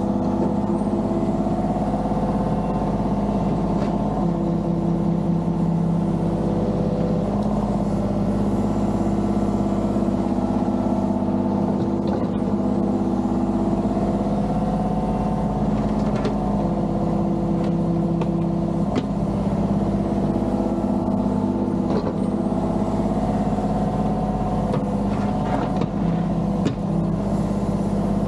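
Mini excavator's diesel engine running steadily under load while digging, with a few sharp knocks now and then from the bucket working.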